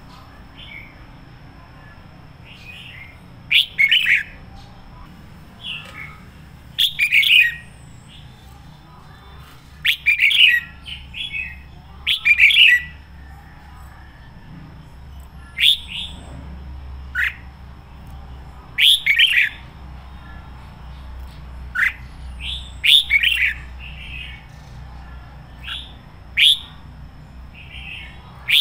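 Red-whiskered bulbul singing short, loud, clear whistled phrases, one every two to three seconds. The bird is fired up, in full song.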